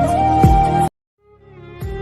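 Background music with a held flute-like melody over a slow, regular beat; it cuts off abruptly about a second in, and after a brief silence a new piece of music fades in.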